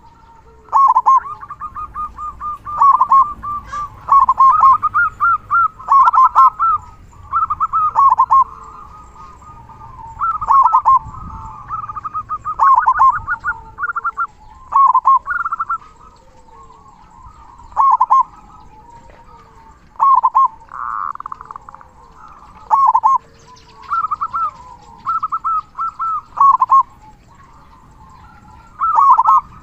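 Zebra dove (perkutut) cooing: repeated phrases of rapid, stuttering coo notes, loud and regular, about one every one to two seconds. This is the bird in full song ('gacor'), giving the big 'kung' voice that keepers prize.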